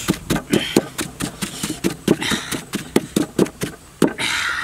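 Pestle pounding chopped chilies in a stone mortar: rapid, even strikes, about four or five a second.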